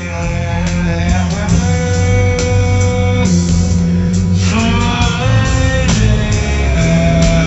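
Loud music with a heavy bass line and a guitar, its held notes bending and gliding in pitch.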